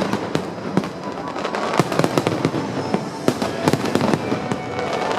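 Fireworks display: a dense, irregular run of shell bursts, bangs and crackles overlapping one another without a pause.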